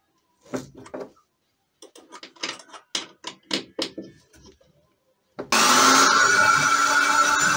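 Short knocks and scrapes as a wooden board is handled. Then, about five seconds in, an electric drill starts suddenly and runs steadily, boring a small hole into a wooden shelf board.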